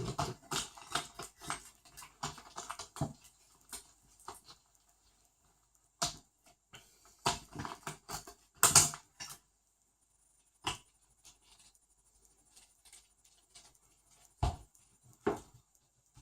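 Small plastic and metal parts of a 1/16-scale RC monster truck's differential being handled by hand: a quick run of light clicks and rattles in the first three seconds, then scattered taps and knocks.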